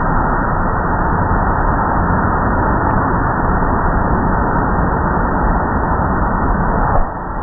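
Steady, loud noise of car wash machinery, an even rushing sound with no distinct tones, which drops suddenly near the end.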